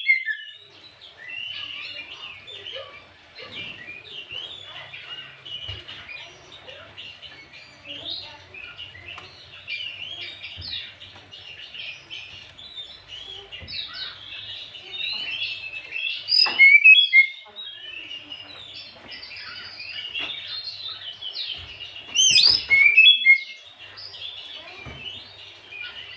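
Oriental magpie-robin singing: a continuous, varied chattering and warbling song, broken twice by louder sweeping whistled phrases, about two-thirds of the way through and again near the end.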